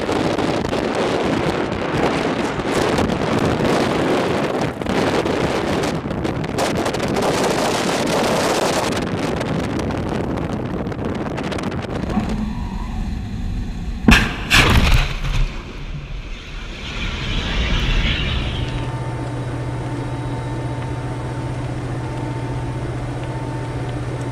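SM-2 Standard Missile's rocket motor making a loud, steady rushing noise as it climbs away from a warship, for about twelve seconds. This is followed by a single sharp bang, a short rush and then a steady low hum.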